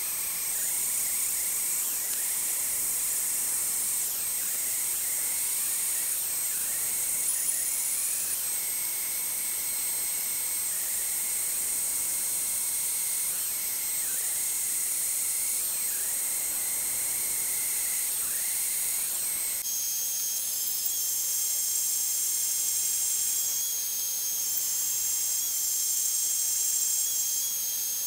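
Reciprocating saw mounted blade-up as a jigsaw, its motor running steadily with a high whine and hiss. The pitch sags briefly several times under load as a workpiece is fed into the blade, and the whine shifts to a different pitch about two-thirds of the way through.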